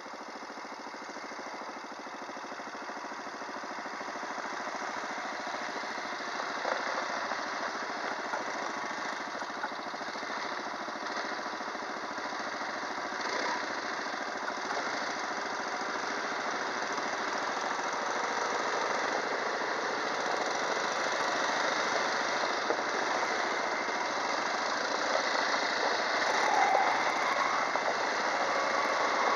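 Several quad bikes' small engines running in a line along a dirt track, a steady rattly engine noise that grows gradually louder.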